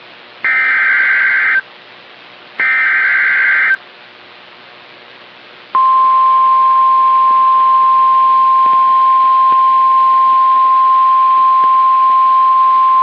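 Emergency Alert System SAME header data bursts, two harsh buzzy electronic bursts about a second long with a second's gap between them, followed after a short pause by the NOAA Weather Radio 1050 Hz warning alarm tone, one steady pure high tone held for about nine seconds. The tones signal that an alert, here a severe thunderstorm watch, is about to be broadcast.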